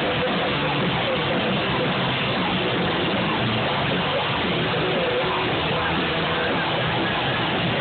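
Loud, distorted rock music playing without a break.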